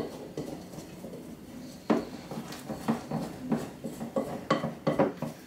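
Wooden spoon scraping and knocking against a glass mixing bowl while a thick, sticky dough is stirred, in irregular strokes that come more often from about two seconds in.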